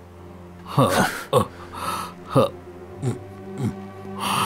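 Low sustained film-score drone under a wounded man's laboured breathing, with about five short groans that fall in pitch and a few rough gasps.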